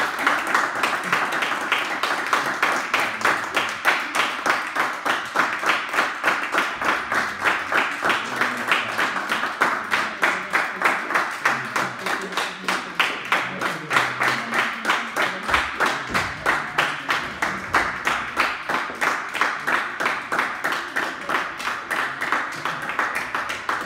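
Audience applause for the readers taking their bows, the clapping falling into a steady rhythm of about three claps a second.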